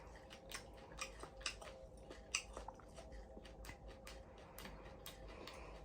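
Close-up chewing of fried whole prawns eaten with shells and legs on: irregular crisp crunches, roughly two a second.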